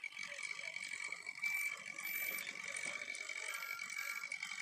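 Battery-powered toy train running along its track: a small motor and plastic gearbox whirring with a steady high whine and a fine, rapid ticking of the gears.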